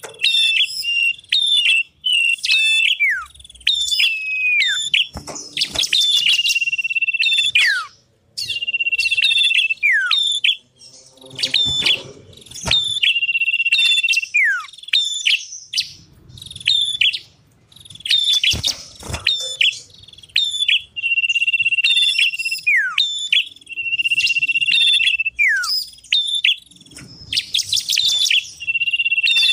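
Small songbirds singing, common iora and prinias: repeated long, steady whistles, each ending in a quick falling glide, alternating with rapid high chirping trills.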